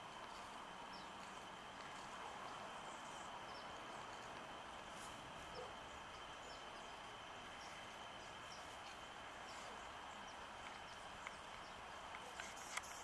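Quiet outdoor background: a steady faint hiss with small, high bird chirps every second or so, and a few light clicks near the end.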